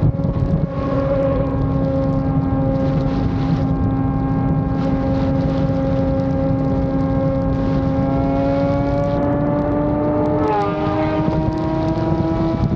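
Yamaha FZ6 Fazer 600's inline-four engine running steadily while riding, with a rush of wind over the microphone. Its pitch holds, then climbs slowly over the last few seconds, with a brief change in its note about ten and a half seconds in.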